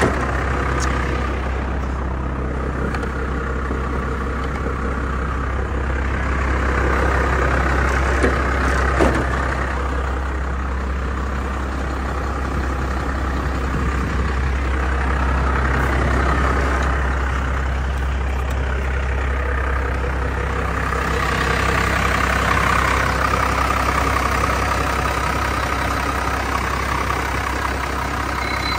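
Cummins 5.9 inline-six turbodiesel in a Ford F800 truck idling steadily, a constant low diesel hum.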